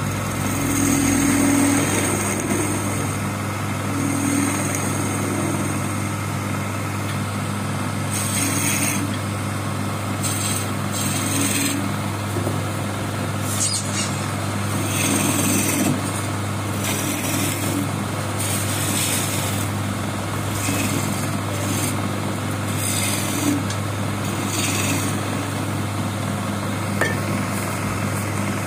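Electric wood lathe running with a steady hum, while a hand chisel scrapes and cuts the spinning wooden piece in short hissing passes every second or two.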